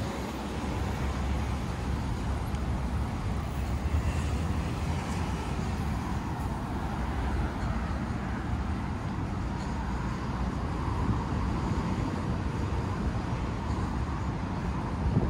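Steady road traffic noise from cars passing on a city street, a continuous low rumble without a break.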